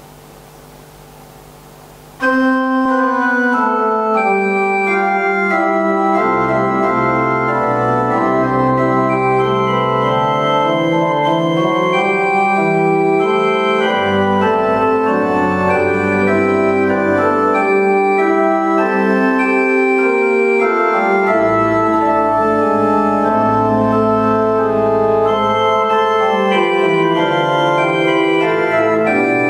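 Church organ playing a prelude. It starts suddenly about two seconds in with full held chords that change slowly, and deep pedal bass notes come in and drop out in stretches. A faint steady room hum comes before it.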